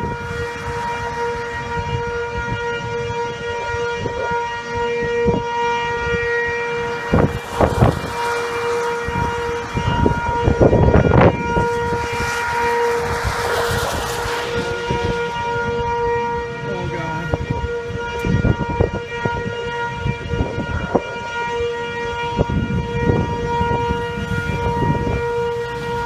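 Outdoor tornado warning siren sounding a steady tone, fading for a few seconds about two-thirds of the way through, with gusts of wind buffeting the microphone.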